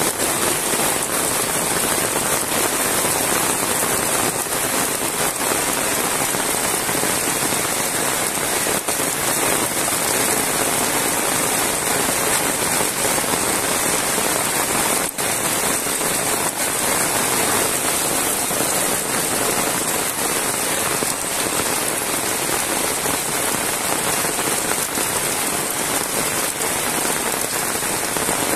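Heavy rain pouring steadily onto a paved road and wet grass and trees, a dense, even hiss without let-up.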